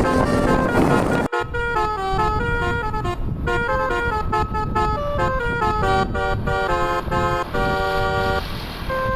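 Basuri telolet bus horn, a multi-trumpet musical air horn, playing a fast tune of stepping notes, with a few longer held chords near the end. Just over a second in the sound cuts abruptly and the road noise behind the horn drops away.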